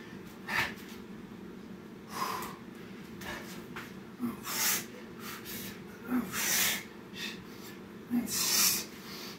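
A man breathing hard from exertion: sharp, hissing exhales, about one every two seconds.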